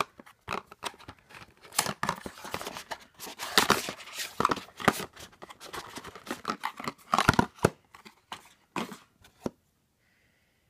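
Small cardboard gift box being opened and its product unwrapped: a run of rustling, tearing and crinkling packaging with sharp clicks and scrapes, which stops near the end.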